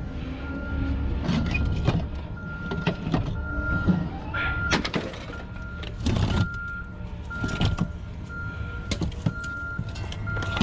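A vehicle's reversing alarm beeping steadily at one pitch, about once a second, over a low engine rumble, with scattered sharp clanks and knocks.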